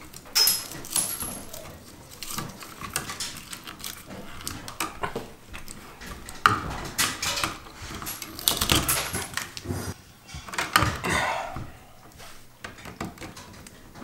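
Hands stripping the outer sheathing off 12-gauge non-metallic cable at a plastic outlet box: irregular rustling, scraping and clicking of cable, conductors and stripping tool, with a few brief squeaks.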